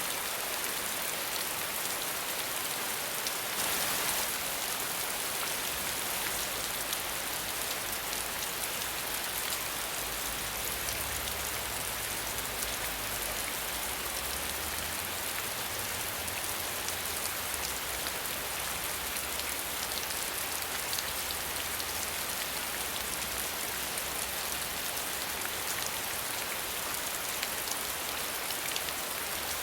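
Steady rain falling, a constant hiss dense with fine patter of drops, with no thunder. It swells briefly about four seconds in.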